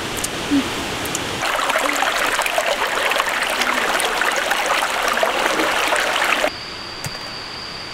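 Shallow rocky stream running over stones, a steady rushing and splashing of water. Near the end it cuts off abruptly to quieter background with one steady high-pitched tone.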